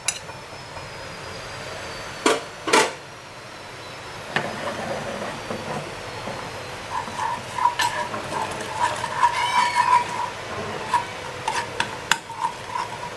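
Crushed garlic and ground coriander sizzling in lamb tail fat in a small enamel frying pan: the ta'leya for molokhia. There are two sharp knocks of a metal spoon near the start. Steady sizzling begins about four seconds in, with the spoon clinking and scraping against the pan as it stirs.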